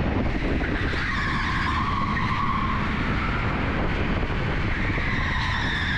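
Onboard sound of an electric go-kart driven at speed: a high electric-motor whine that changes in pitch with speed, over a steady rush of tyre and track noise.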